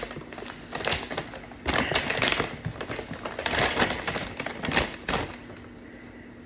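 Takeout food packaging being handled: crinkling and rustling in quick irregular bursts that stop about five seconds in.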